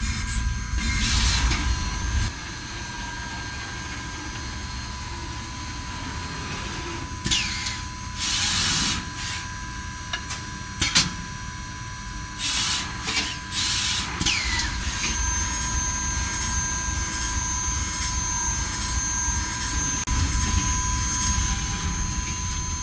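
Vertical CNC machining cell working perforated brake discs: a steady machine whine at several fixed pitches, with several short bursts of hissing and a sharp click about halfway through.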